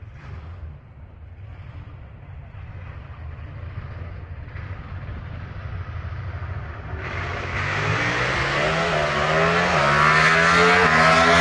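Drag race car making a pass down the strip. A low engine rumble builds for the first several seconds. From about seven seconds in comes a loud, rising engine note that climbs in pitch, dipping twice at gear changes, and is loudest near the end.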